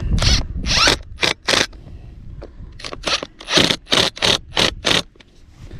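Ryobi cordless drill tightening the screws of a saddle clamp onto poly pipe, run in about a dozen short bursts of the trigger. There are a few spaced bursts in the first second and a half, then a quicker run of them from about two and a half to five seconds.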